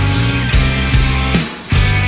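Hard rock band music, an instrumental passage with no singing: heavy low sustained notes with rhythmic hits. It breaks off briefly near the end, then comes back in.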